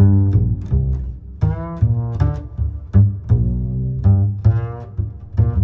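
Background music: low pitched notes over a regular plucked beat.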